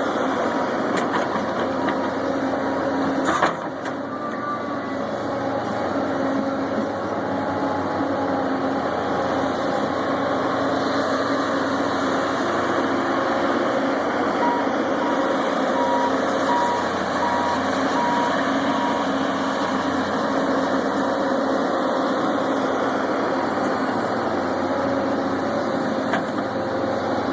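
Caterpillar 320CL hydraulic excavator's diesel engine running steadily, with a single knock about three and a half seconds in. Midway, a travel alarm beeps about seven times over some four seconds.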